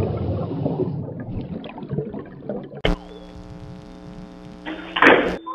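Sound design of production-company logo idents: a dense, rough noise, then about three seconds in a sharp click and a held electronic chord, with a loud whoosh-like burst near the end.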